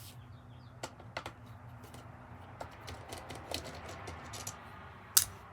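Scattered light clicks and taps as screws are taken out of a Kirby vacuum's headlight hood with a screwdriver, with one sharper click near the end.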